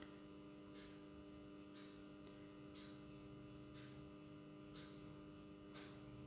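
Near silence: a steady low electrical hum, with a faint soft hiss about once a second.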